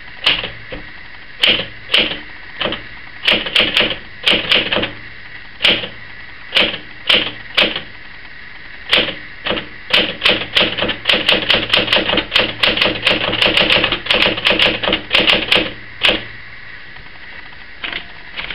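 Smith-Corona Sterling manual portable typewriter being typed on: separate keystrokes at an uneven pace, then a fast run of strikes about ten seconds in that stops a couple of seconds before the end.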